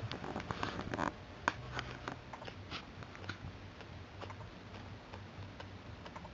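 Pug puppies moving and mouthing at play: scattered small clicks, taps and chewing sounds at an uneven pace, busiest in the first couple of seconds, over a faint low hum.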